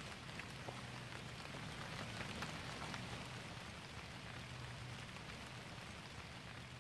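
Light rain pattering on forest leaves: a soft, even hiss dotted with many small irregular drop ticks, over a faint low hum.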